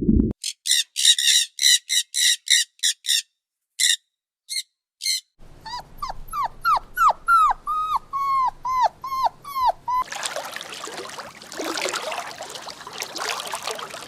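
A puppy or small dog giving rapid short high-pitched yips, about three a second, then a run of falling whimpers. It ends in a stretch of rough noise with no clear calls.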